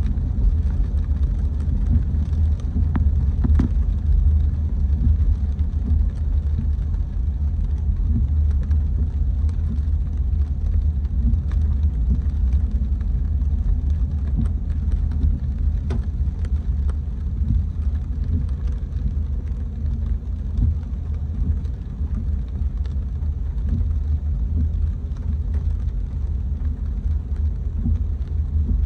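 A car driving in the rain: a steady low rumble of engine and road noise, with a few faint scattered ticks.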